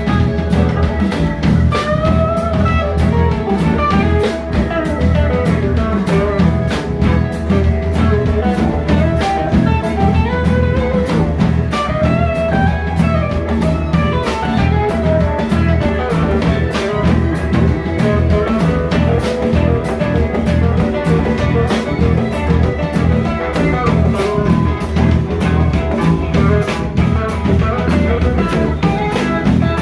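Live rock band playing: an electric guitar lead line winding up and down over a steady drum kit beat, through the club's amplifiers.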